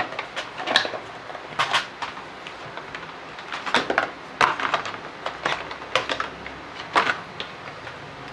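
Irregular clicks and knocks of hard plastic parts being handled: a Bosch pressure washer's plastic housing is pulled apart and its motor and pump unit lifted out and set down on the bench.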